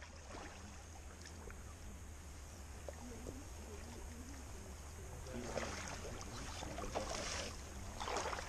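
Low steady rumble of wind on the microphone over calm river water. Faint splashing and sloshing of water rises in the second half, with a few small clicks.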